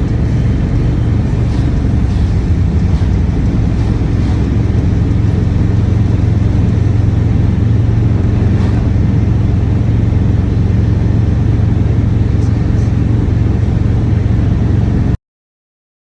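A motor vehicle running steadily with a constant low drone, cutting off suddenly near the end.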